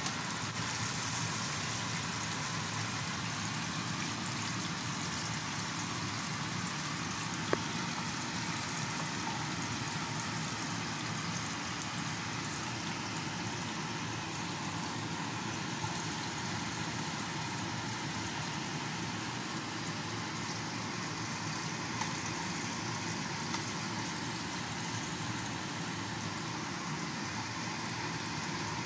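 Hot oil sizzling steadily in a frying pan as milkfish pieces fry, with a single sharp click about seven seconds in.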